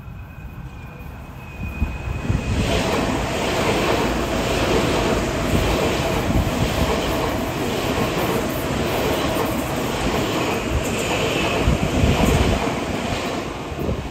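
Tokyu 2020 series electric commuter train passing close by at speed, its wheels running on the rails with a loud rumble. The rumble swells about two seconds in and fades near the end, with a clatter about once a second as the bogies go by and a steady tone under it.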